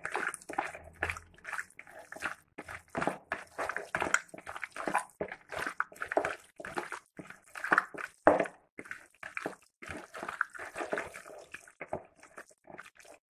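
Wet squelching of a hand kneading raw chicken pieces into a yogurt, garlic and lemon marinade in a plastic bowl, in quick irregular squishes that thin out near the end.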